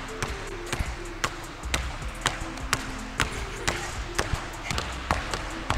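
Background music with a steady beat of about two hits a second over short, held low notes.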